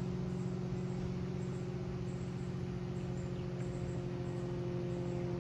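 Steady drone of a distant Cessna 182 Skylane skydiving plane's piston engine and four-bladed propeller as it flies overhead.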